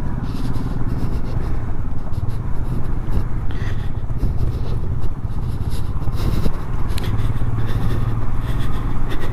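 Motorcycle engine running steadily while the bike rides over a loose, rocky gravel track, with the rumble and scrape of tyres over stones.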